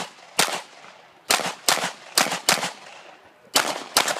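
Pistol shots fired rapidly, seven in all, mostly in pairs about half a second apart with roughly a second between pairs (double taps on each target). Each sharp crack has a short ringing tail.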